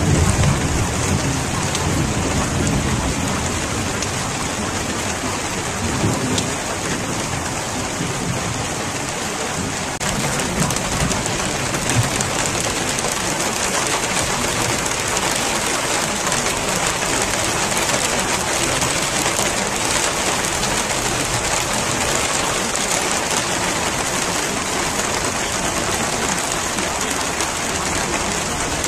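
Steady rain falling, with low rumbles of thunder right at the start and again about six seconds in.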